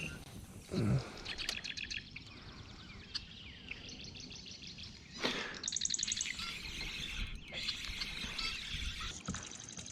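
Birds chirping and trilling in repeated quick high runs, with a brief rush of noise about five seconds in.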